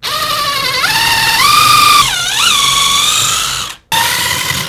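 Ridgid cordless drill with a 3/16-inch bit drilling a pilot hole for a lag bolt through drywall into a wooden wall stud. The motor whine steps up in pitch as it speeds up, dips and recovers about halfway through as the bit meets resistance, then stops briefly and runs again near the end.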